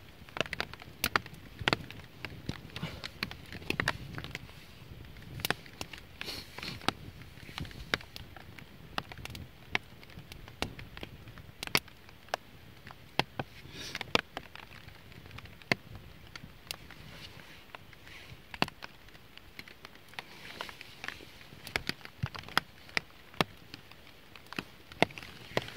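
Small campfire of split wood crackling, with irregular sharp pops and snaps as the damp outer wood dries in the flames.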